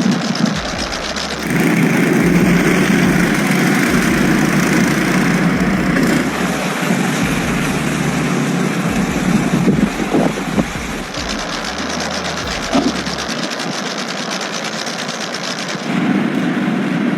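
Motor-vehicle engines running steadily in street ambience. The sound changes abruptly about every four to five seconds.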